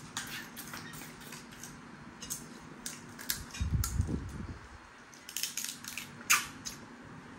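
Eating noises from cracking and peeling prawn shells and sucking small snails (siput sedut) out of their shells by mouth: a scatter of sharp crackles, clicks and sucking slurps, with a short low muffled sound about halfway through.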